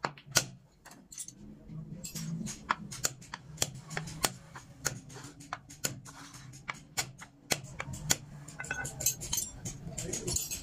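Hand carving chisel cutting into wood: a run of sharp, irregular clicks, a couple a second, as the blade bites and small chips snap off.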